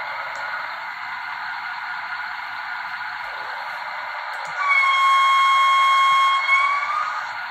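Sound decoder of a Märklin H0 BR 260 diesel shunter model playing through its small onboard speaker: a steady diesel engine running sound, then one horn blast of about a second and a half starting around five seconds in.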